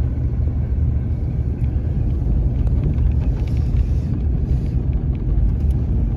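Steady low rumble of a plow-equipped pickup truck driving on a snow-packed road, engine and tyre noise heard from inside the cab.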